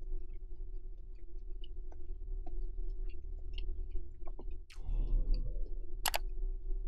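Close-miked eating sounds: soft wet mouth clicks and chewing, then a crunchy bite into fried pork cutlet about five seconds in, followed by a sharp click about a second later.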